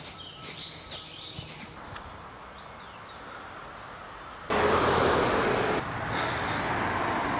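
Small birds chirping faintly over a quiet outdoor background. About four and a half seconds in, this gives way abruptly to a much louder, steady rushing noise of road traffic.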